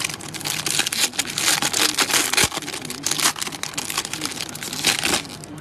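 Plastic wrapper of a baseball card tri-pack crinkling as hands work it open: a dense crackle that stops suddenly about five seconds in.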